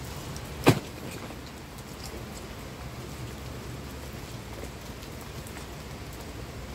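A backpack dropped onto wet tarmac lands with one sharp thump about a second in, over the steady hiss and patter of light rain.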